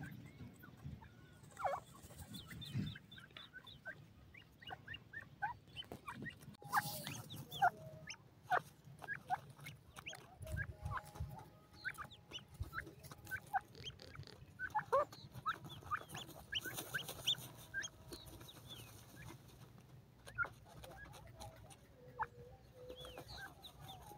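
Grey francolins giving faint, scattered soft clucks and short chirps while dust-bathing, with soft scratching and rustling of dry soil underneath.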